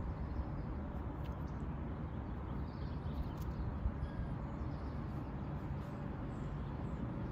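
Steady outdoor background noise, mostly a low rumble, with a few faint short high chirps or ticks.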